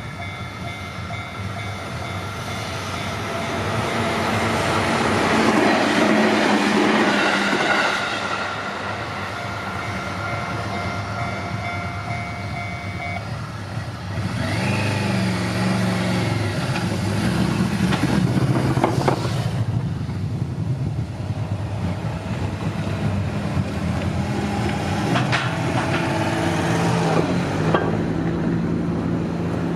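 Japanese railway level-crossing warning bell ringing steadily while a JR Tokaido Line train passes through with a loud rush around five to eight seconds in. The bell stops about 13 seconds in, and road vehicles then pass over the crossing with engine noise.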